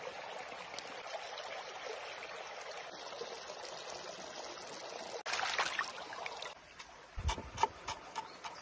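Steady trickling of water for about five seconds, then a brief louder rush of noise. Near the end a cleaver chops parsley on a wooden cutting board, about three sharp chops a second.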